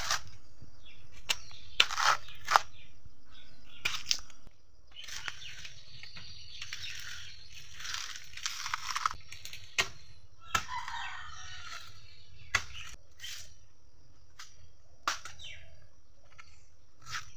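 Wild banana plant's fibrous stem sheaths being peeled away and cut with a machete: a string of sharp cracks and snaps, with longer ripping stretches a few seconds in as whole layers tear off toward the soft inner core.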